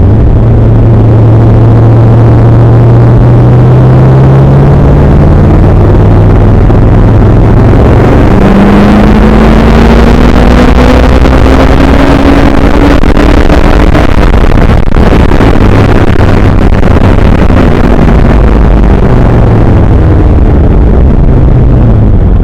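Car engine pulling as the car drives, its pitch climbing during acceleration and dropping again near the end as it slows. The recording is loud and overloaded throughout.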